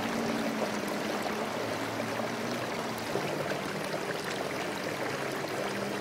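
Water trickling and splashing steadily from the spouts of a tiered stone garden fountain into its basins.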